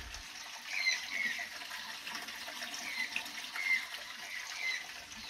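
Several short bird calls, spaced a second or so apart, which the speaker thinks are jays (gralhas), over a steady faint trickle of running water.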